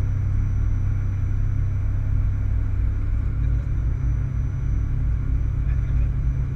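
Cessna 152's four-cylinder Lycoming O-235 engine and propeller running with a steady low drone. The note shifts slightly about three seconds in.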